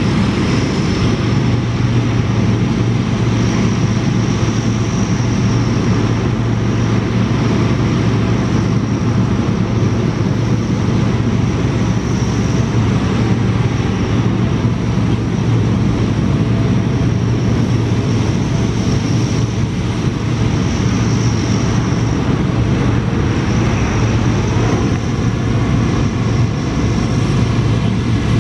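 Lockheed C-130B Hercules's Allison T56 turboprop engines idling on the ground: a steady, loud low drone of the spinning propellers under a high turbine whine that swells and fades every few seconds.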